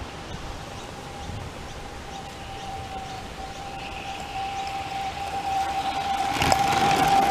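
Accucraft IDA 2-4-0 live steam locomotive approaching on gauge 1 track, its running noise growing louder over the last two seconds, with a sharp click about six and a half seconds in. A steady high tone sounds throughout and strengthens as the engine draws near.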